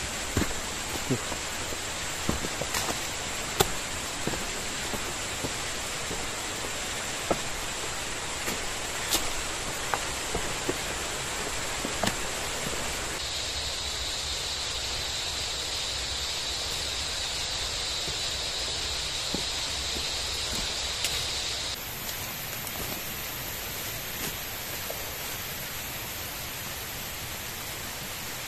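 Tropical forest ambience: a steady hiss with a constant high insect buzz. A lower insect drone joins about halfway through and stops a few seconds later, when a still higher buzz takes over. Scattered light clicks and snaps, like footsteps on leaf litter, in the first half.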